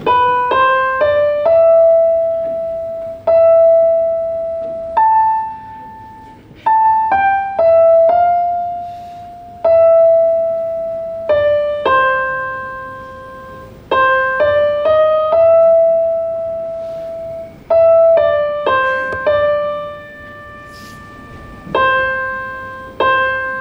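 Electronic keyboard with a piano sound playing a slow melody, one note at a time: short runs of quick notes leading into long notes that ring and fade, with the opening phrase coming back about halfway through.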